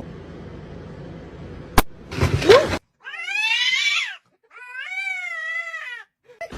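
A domestic cat giving two long, drawn-out meows, the first sliding down in pitch and the second wavering. Just before them there is a sharp click and a brief, louder noise.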